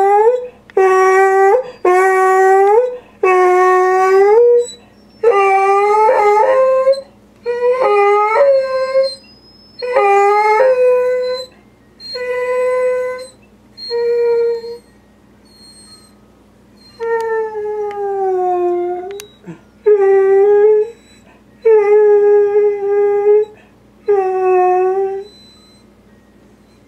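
Beagle-basset hound howling in over a dozen loud calls of about a second each, most held on one pitch and some falling away at the end, with a pause of a few seconds about halfway. The howling is his upset protest at other dogs getting the dog beds before him.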